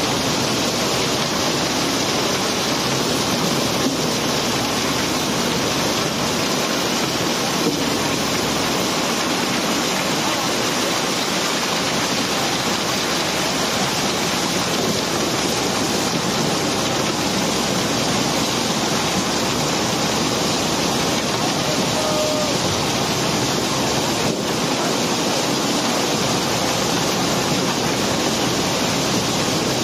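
Steady, dense rushing noise of cobblestones sliding out of a barge's hold during unloading, with a few faint knocks of stone on stone.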